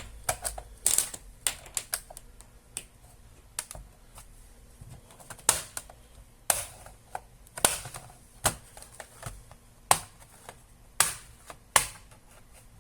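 Plastic snap clips of an ASUS X551M laptop's top case popping loose one after another as a plastic prying tool works along the seam: a string of sharp, irregular clicks, some louder than others.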